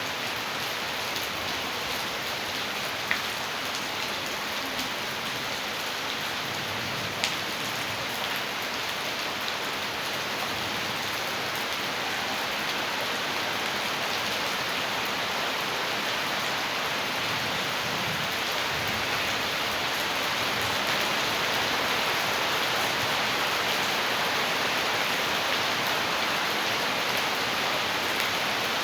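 Heavy rain falling with rainwater rushing along as runoff, a steady even hiss that grows slightly louder about two-thirds of the way through. Two sharp clicks about three and seven seconds in.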